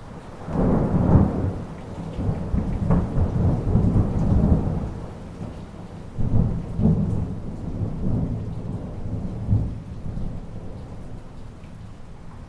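Thunderstorm: rolling thunder over steady rain. A loud rumble begins about half a second in, a second roll comes around six seconds in, and it dies away toward the end, leaving the rain.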